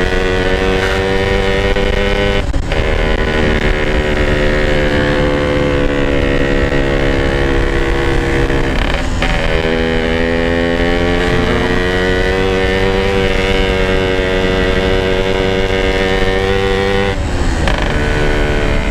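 Yamaha RX-King two-stroke single-cylinder motorcycle engine pulling at a steady, moderate throttle while riding. The note breaks off and picks up again three times: early, midway and near the end.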